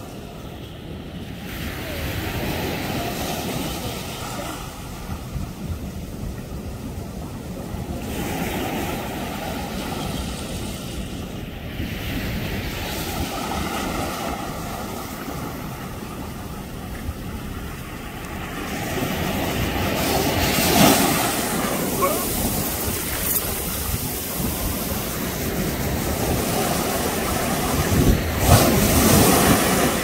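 Ocean surf washing in over rocks and up onto sand: a steady rush of water that swells and eases with each wave. The two loudest surges come about two-thirds of the way in and near the end.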